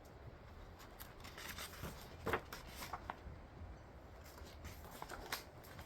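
Faint paper rustling and a few soft clicks from a picture book being handled as a page is turned.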